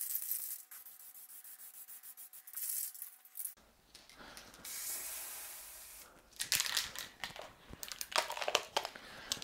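Aerosol spray can of clear coat hissing in short bursts, then a run of clicks and rattling as the can is handled.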